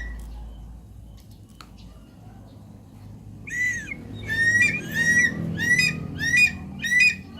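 Javan pond heron calling: a series of about six short, harsh squawks, roughly one every two-thirds of a second, starting about halfway through.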